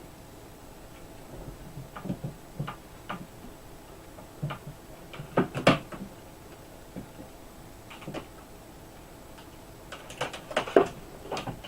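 Scattered clicks and light knocks from hands handling the laptop and its parts, in a few short clusters, the loudest about five and a half seconds in and another group near the end.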